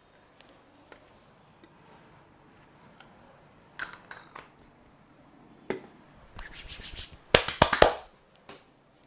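Massage sounds of hands working on skin and hair: soft rubbing and scattered light taps, then a quick run of about seven sharp slaps a little past the middle.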